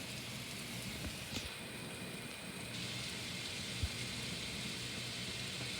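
Steady rain falling, an even hiss with no break, and a single soft knock about four seconds in.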